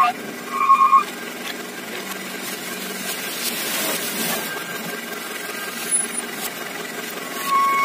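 Dump truck engine running steadily while the hydraulic hoist raises the tipper bed to dump its load. There are a few short, high-pitched beeps near the start and again near the end.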